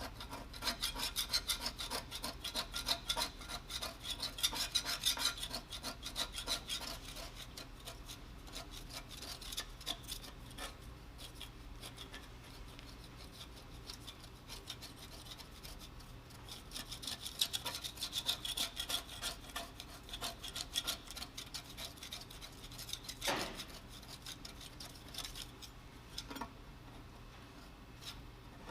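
Hand scraping of paint softened by citrus stripper off a metal lathe leg: quick, rasping strokes in two busy spells, near the start and again in the middle, with lighter scraping between and a single sharper knock about two-thirds of the way through.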